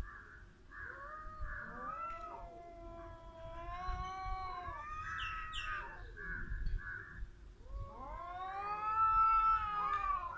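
Two cats caterwauling at each other in a territorial standoff: long, drawn-out yowls that waver up and down in pitch and overlap. A second long yowl starts about three quarters of the way through and is the loudest part.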